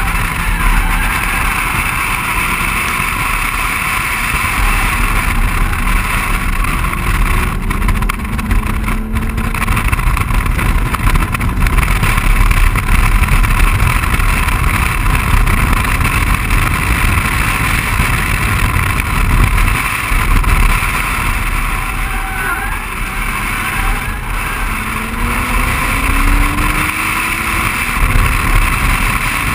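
BMW 135i's turbocharged 3.0-litre straight-six pulling hard at speed on a racetrack, heard from inside the car over heavy wind and road noise. The engine note rises under acceleration twice, once early and once near the end.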